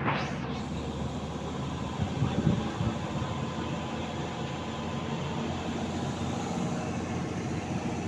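An engine running steadily, with a few louder thumps about two to three seconds in.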